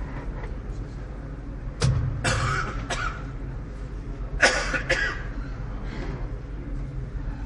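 Two bouts of coughing in a large hall, about two and a half seconds apart, over a steady low rumble.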